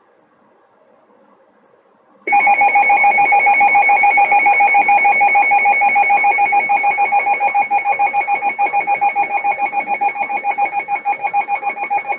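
NOAA Weather Radio's emergency alert tone: after faint static, a loud steady electronic tone comes on about two seconds in and holds for about ten seconds, its level wavering rapidly. It is the attention signal that comes before a broadcast warning.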